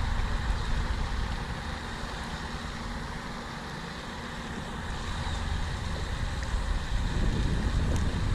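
Wind buffeting the microphone, a fluctuating low rumble, over a steady background rush like distant road traffic, with a couple of faint clicks near the end.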